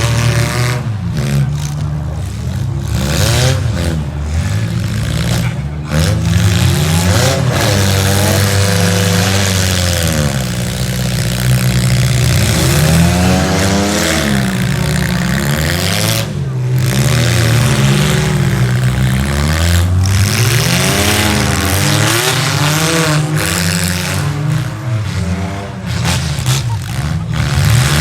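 Several demolition derby cars' engines revving up and down at once, their pitches rising and falling against each other as the cars accelerate and back off.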